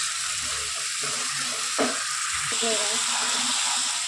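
Onions, tomatoes and ginger-garlic paste sizzling in hot oil in a non-stick kadai while a wooden spatula stirs them, with a single knock about two seconds in.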